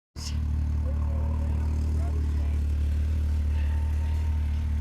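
Off-road vehicle engine idling steadily, a low even hum.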